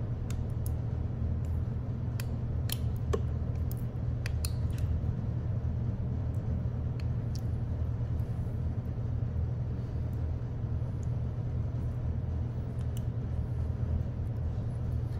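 Steady low hum in the background, with a few light clicks and taps of a spatula scraping honey out of a ceramic ramekin, most of them in the first few seconds.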